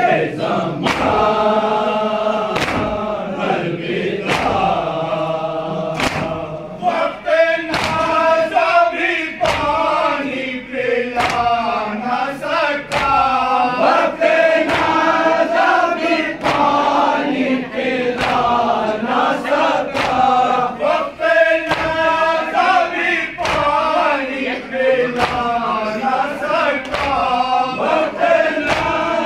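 A group of men chanting a farewell latmiyah (noha) in unison, with sharp strikes of hand-on-chest matam keeping time about once a second.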